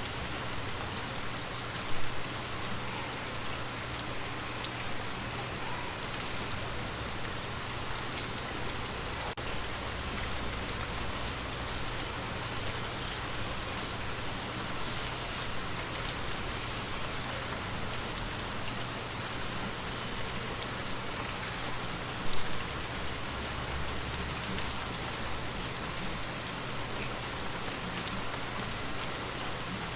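Steady rain falling and pattering on a surface, with two brief, louder hits: one about two seconds in, and one a little past two-thirds of the way through.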